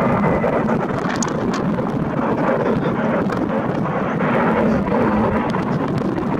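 Steady, loud roar of jet engine noise mixed with gusty wind buffeting the camera's built-in microphone.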